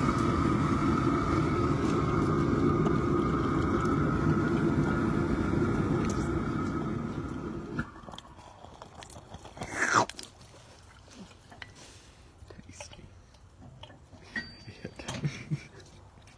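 A blacksmith's forge running with a steady roar and a thin whistle-like tone, which stops abruptly about eight seconds in. About ten seconds in comes a single loud swish that falls in pitch, followed by scattered light clicks and knocks.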